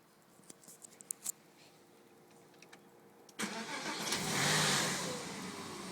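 Porsche 986 Boxster's flat-six engine starting: a few light clicks, then it fires suddenly about three and a half seconds in, rises briefly, and settles to a steady idle.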